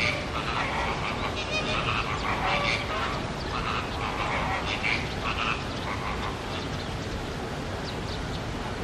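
A run of short animal calls coming quickly one after another over a steady background hiss, thinning out about five and a half seconds in.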